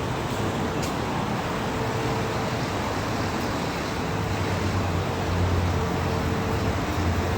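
Shin Nippon Koki PC-55V CNC vertical machining center running a test cycle: a steady machine noise with a whine that comes and goes, and a low hum that grows stronger about halfway through.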